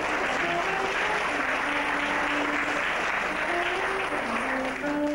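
Audience applauding, with a live band's melody playing underneath; the clapping fades out near the end.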